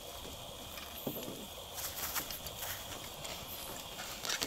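Footsteps and knocks on the wooden boards of a zipline platform: scattered short clicks, thickest from about two seconds in, over a steady high hiss.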